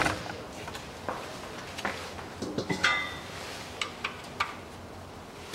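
Scattered light metallic clicks and clinks of a ring spanner being fitted to and turned on the engine's oil drain plug, with one ringing metal clink about three seconds in.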